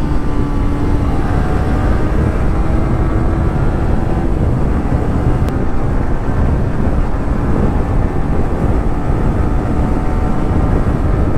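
Wind buffeting the microphone on a motorcycle riding at speed, a continuous rumble, over the steady drone of the bike's engine, which sinks into the wind about four seconds in.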